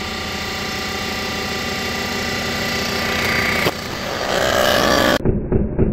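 Cylinder head resurfacing machine running and milling the deck of a Ford 4.6 V8 cylinder head, taking a cut of a couple thousandths to clean up nicks and a rough factory finish. A steady motor hum with several steady tones; a little past halfway the sound breaks and turns louder and noisier as the cut goes on. Near the end it switches abruptly to a muffled rhythmic pulsing, about four beats a second.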